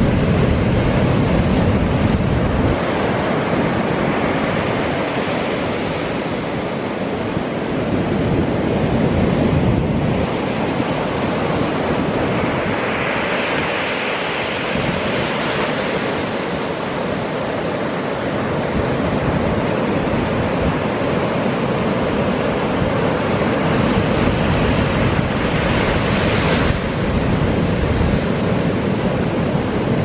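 Heavy Pacific surf breaking and washing up a sandy beach, a continuous rush of waves that swells and eases slowly, with wind buffeting the microphone.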